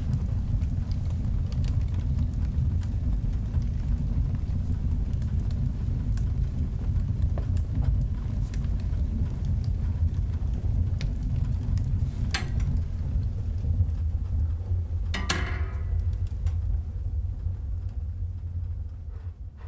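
Big fire burning with a low, steady roar and scattered crackles; a louder crack about 12 seconds in and another, with a brief ringing pop, around 15 seconds in. The sound fades out near the end.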